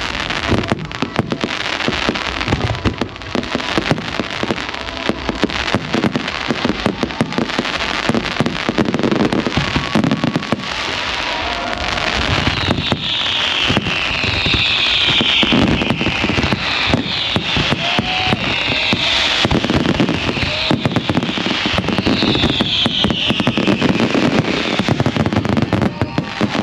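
Fireworks display going off: a dense, irregular barrage of bangs and crackling from aerial shells and comets. About halfway through, a run of high falling whistles sounds over the barrage.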